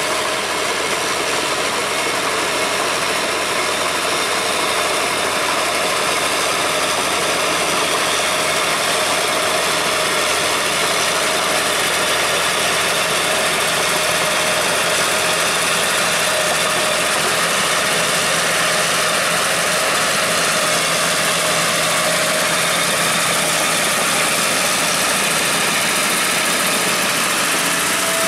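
Crawler tractor's engine running steadily at a constant speed.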